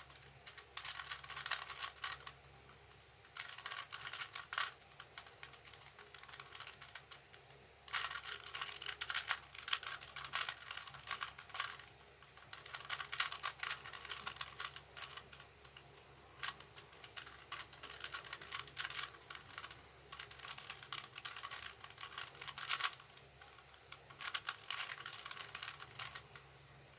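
A 2x2 puzzle cube being turned by hand: rapid runs of plastic clicking and clacking in bursts of a few seconds, with short pauses between the runs of turns.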